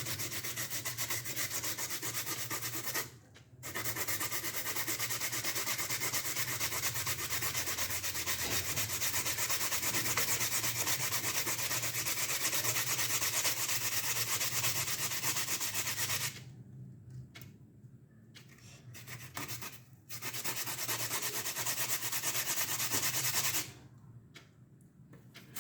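Food being grated by hand on the fine side of a grater: quick, steady rasping strokes. The grating pauses briefly about three seconds in, stops for several seconds past the middle apart from one short burst, and stops again near the end.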